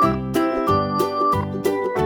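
Light, cheerful background music with a steady beat of short melodic notes.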